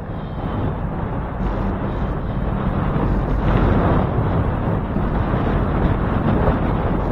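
Wind buffeting the microphone of a handlebar camera on a moving bicycle: a steady, loud rumble.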